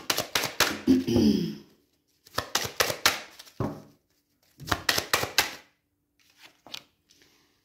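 Deck of tarot cards being shuffled by hand: three short bursts of rapid card clicks, then a few soft clicks near the end as a card is laid down.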